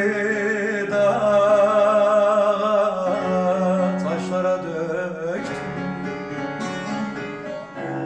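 Male voice singing a Turkish folk song (türkü) in a few long, wavering held notes without words, over a plucked bağlama and an electronic keyboard.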